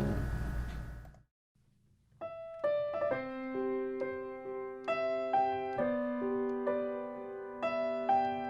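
Piano playing a slow, gentle melody, single notes struck every half second or so over lower sustained notes. It begins about two seconds in, after the end of the previous music dies away and a short silence.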